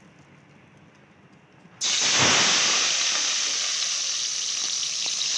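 Sliced onions dropped into hot oil, starting a sudden loud sizzle about two seconds in that carries on steadily as they begin to fry.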